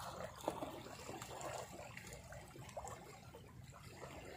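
Faint sea water lapping and trickling among shoreline rocks.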